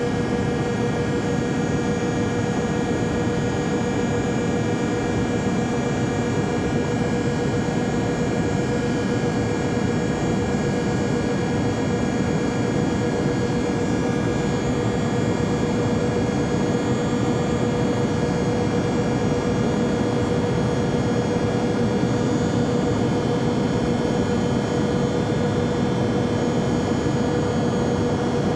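Steady, unchanging drone of an airplane in flight: an even rushing noise with a steady hum over it.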